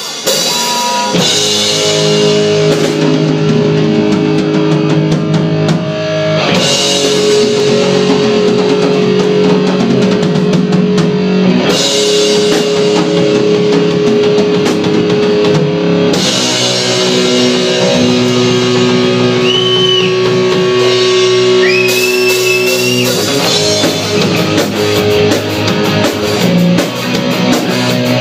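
Live rock band playing an instrumental passage on electric guitar, electric bass and drum kit. The guitar part shifts every few seconds, with a couple of high bent notes a little past the middle.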